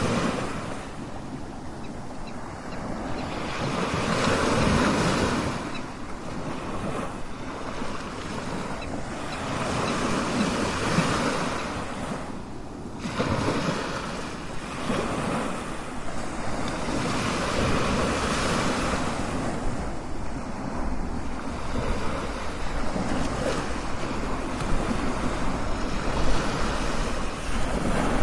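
Strong ocean waves breaking on a shore, the surf surging and fading every few seconds.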